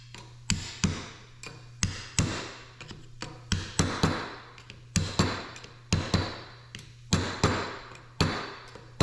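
Repeated sharp blows, about two a second, each with a brief metallic ring, as a seal-side-down part is hammered down to seat it in a hydraulic drive motor's housing.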